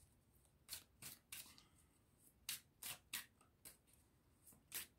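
A tarot deck being shuffled by hand: faint, short sliding slips of cards, about two a second in irregular little clusters, with a brief lull near the middle.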